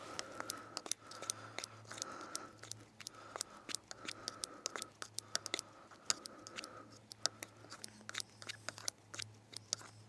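Angler handling bait and tackle at his seat box: a rapid, irregular run of sharp clicks and snips. A faint steady high tone sounds underneath until about seven seconds in.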